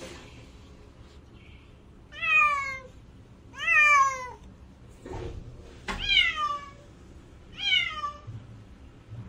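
A domestic cat meowing four times, about every one and a half to two seconds, each meow falling in pitch.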